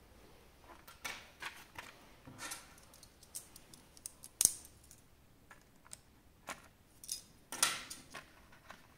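Small plastic parts and packaging being handled during an action figure unboxing: scattered light clicks and rustles, with one sharp click about halfway through and a longer rustle near the end.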